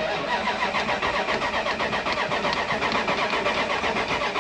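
Dodge Ram 1500's starter cranking the engine in a fast, even rhythm for about four seconds without it catching, then cutting off. The owner takes the no-start for a lack of fuel.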